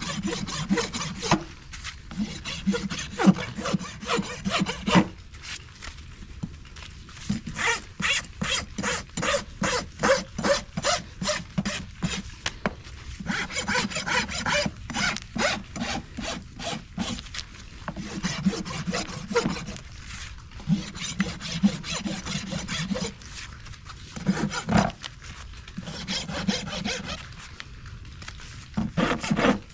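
Farrier's hoof rasp being drawn back and forth across the bottom of a horse's hoof, rasping down the hoof wall and sole. The strokes come in runs of about two to three a second, broken by short pauses.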